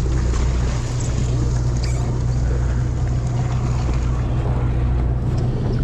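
A sportfishing boat's engine droning at a steady low pitch under a constant rush of wind and water noise.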